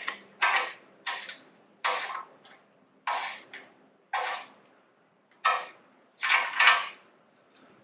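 A wrench worked in repeated strokes to unscrew an oxygen sensor from a Yamaha MT-10's exhaust, about eight short strokes with pauses between them.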